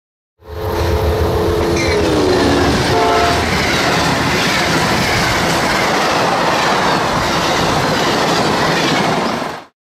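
Train passing close by: its locomotive horn sounds for about two seconds and drops in pitch as it goes by, then the steady rumble and clatter of the cars rolling past.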